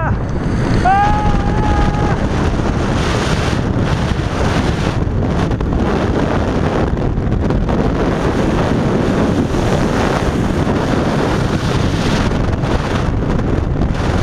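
Strong wind rushing over the microphone as the jumper falls on the SkyJump descent cable, steady throughout. About a second in, a drawn-out shout from the jumper rises over it.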